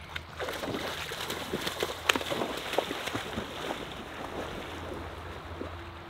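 A dog splashing and wading through shallow river water, with irregular sloshes over the first few seconds that then thin out. Running water and wind on the microphone lie underneath.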